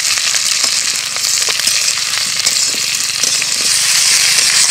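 Chunks of mankochu (giant taro) and wet spice pastes frying in hot oil in a karahi: a loud, steady sizzle dotted with small crackles and pops.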